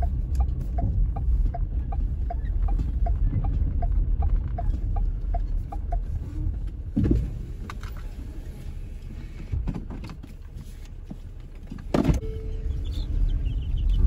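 Car interior road rumble while driving, with a regular ticking about two and a half times a second for the first five or six seconds. There is a knock about seven seconds in and a louder one about twelve seconds in, and the two-week-old chicks riding along start peeping near the end.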